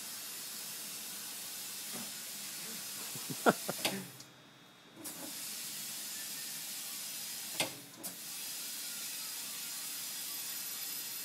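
Compressed air hissing steadily into a Mickey Thompson 33x10.5-15 race slick on a tire changer, its bead just seated by an ether flash. The hiss cuts out for about a second near the middle, then resumes, with a few faint clicks.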